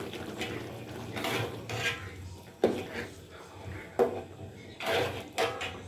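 Metal ladle stirring fish stew in a wok, scraping against the pan with a few sharp clanks, the loudest about two and a half and four seconds in.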